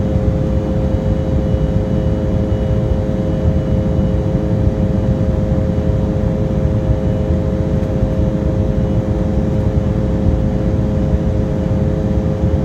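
Cabin noise inside an Embraer 175LR climbing after takeoff: the steady rush and rumble of the airliner with a constant hum from its GE CF34 turbofan engines running through it.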